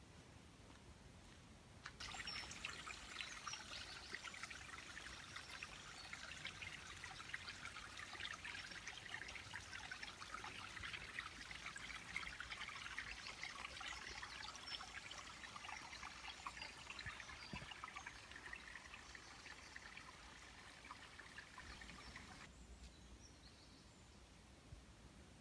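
Water trickling: a dense, faint patter of tiny drips and splashes that starts abruptly about two seconds in and cuts off a few seconds before the end.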